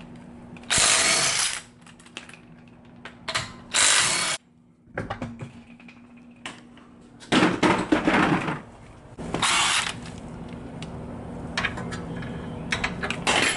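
Wheel lug nuts being loosened with a tool in several short, loud bursts about a second long each. The nuts have probably not been off in years.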